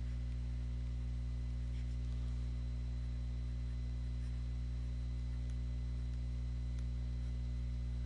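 Steady low electrical mains hum, unchanging, with no other sound over it.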